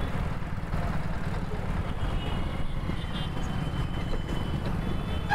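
Motorcycle running steadily while being ridden, a low, even engine rumble with road noise.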